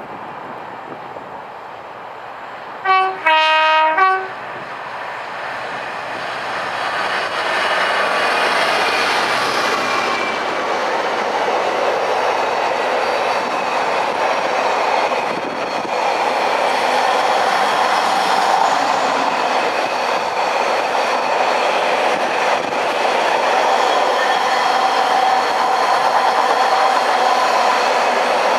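DRS Class 66 diesel freight locomotive sounds a short two-note horn about three seconds in, then runs past close by. A long intermodal train of container flat wagons follows, its wheels clattering and rumbling on the track.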